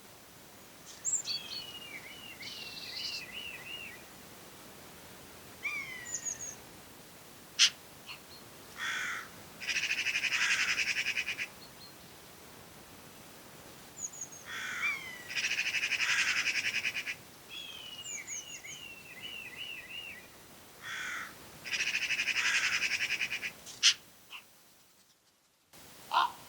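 Birds calling: several harsh, rasping calls about a second and a half each, mixed with series of short descending chirps. Two sharp clicks stand out, one about a third of the way in and one near the end.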